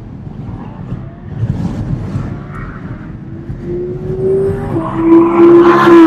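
Audi R8 prototype's V10 engine accelerating hard toward the listener, its pitch climbing, with one upshift about three-quarters of the way through. It grows louder as the car draws near and is loudest at the end.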